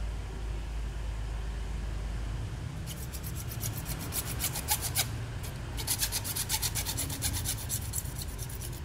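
Hacksaw cutting through a plastic PVC pipe: rapid rasping strokes begin about three seconds in, pause briefly midway, then carry on.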